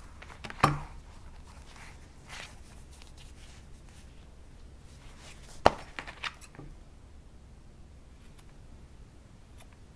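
Two sharp knocks about five seconds apart, the second followed by a few lighter clicks, with soft rustling in between, as objects are handled and set down.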